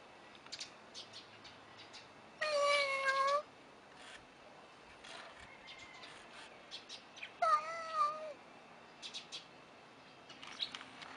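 FurReal Friends Daisy interactive toy kitten meowing twice through its small speaker. Each electronic meow lasts about a second: the first comes about two and a half seconds in and holds a steady pitch, and the second comes about seven seconds in and wavers slightly downward.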